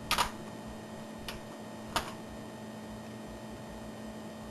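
A few light clicks from a cooking-oil bottle and pot being handled: a quick double click at the start, a faint one a little over a second in, and another about two seconds in, over a steady low hum.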